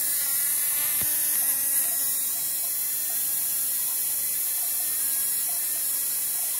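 Steady electrical buzz and hiss of a high-voltage spark gap firing continuously in a home-built Don Smith-style generator running at about 8,000 volts. A single sharp click comes about a second in.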